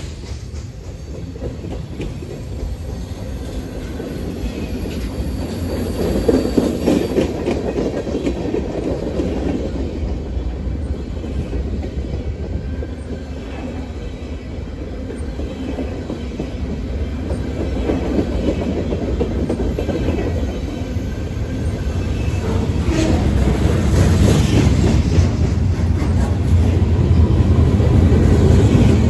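Freight cars of a CSX manifest train rolling past on the track: a steady low rumble of steel wheels on rail with rapid clickety-clack, growing louder near the end.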